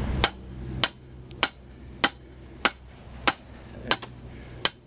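Small sledgehammer striking the nut on top of a five-foot threaded rod, driving it into the ground as an anchor. Eight sharp metallic clinks at a steady pace, a little under two a second, each with a short ring.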